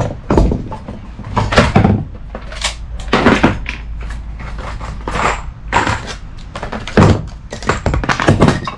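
Tools and packaging being handled: a plastic case of drill bits clattering as it is moved, then a cardboard box of car sound-deadening mats being opened and rummaged. It comes as a string of irregular knocks, rustles and scrapes.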